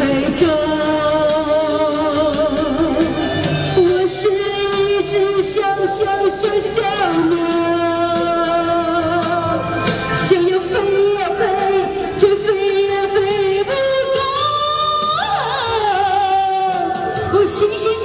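A woman singing a Mandarin pop ballad into a handheld microphone, amplified through a portable speaker over a backing track, holding long notes with vibrato. Late on her voice slides up to a high note.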